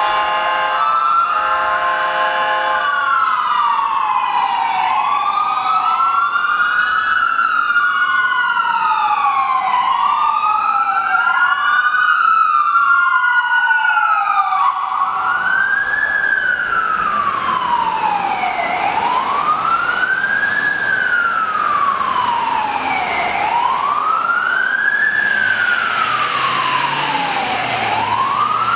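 Emergency vehicle sirens of an ambulance and fire engine on a call: a steady horn blast for the first couple of seconds, then two wail sirens overlapping, rising and falling out of step. From about halfway a single slow wail goes on, rising and falling about every four to five seconds, over growing engine and road noise.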